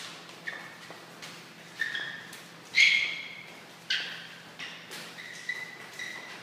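Quick sparring footwork: shoes stamping and twisting on the floor, each step giving a short high squeak that dies away, irregularly about once a second.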